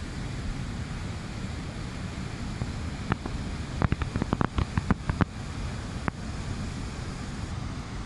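Shallow river rapids rushing over stones, a steady noisy rush with a heavy low rumble. Around the middle comes a quick run of about ten sharp clicks and knocks, with one more shortly after.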